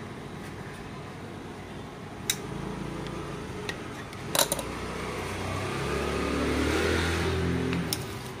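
An engine running nearby, growing louder over several seconds and easing off near the end, with a few sharp clicks and knocks.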